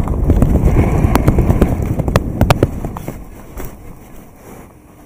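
Downhill skiing: wind rumbling on the microphone and skis scraping over hard-packed groomed snow, with a few sharp clacks, dying away about three seconds in as the skier slows to a stop.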